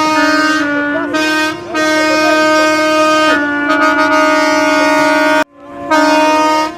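Several boat air horns sounding together in long, steady blasts at two or three different pitches that overlap and change as horns join and drop out. All of them cut off about five and a half seconds in, then sound again for about a second near the end.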